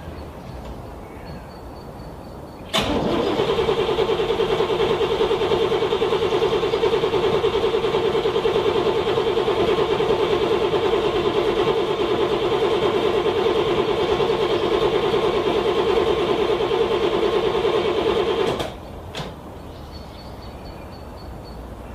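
Cold car engine cranking on the starter for about sixteen seconds in a fast, even rhythm without catching, then cut off suddenly, followed by a single click. It is a struggling cold start in freezing weather.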